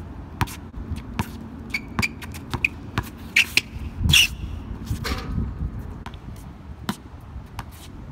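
Basketball bouncing and sneakers squeaking on an outdoor hard court during one-on-one play, with a series of sharp knocks and short high squeaks. The loudest hit, about four seconds in, is the ball striking the rim.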